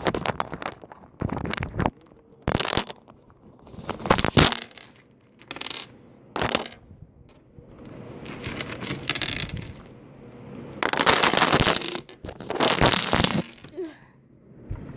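Handfuls of small plastic gems clattering and rattling against each other in repeated bursts, as they are stirred and poured. There are about eight bursts, with quieter gaps between them.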